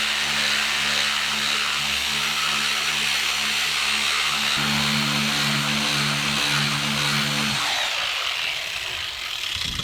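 Electric power sander running against a rusty steel axe head: a steady motor hum under a gritty hiss of abrasive on metal. The motor hum drops away about three quarters of the way through and the hiss fades out near the end.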